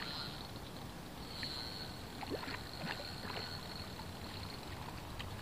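Faint water splashing and a few small ticks as a hooked Korean piscivorous chub is fought near the surface on a spinning rod, over a thin steady high whine.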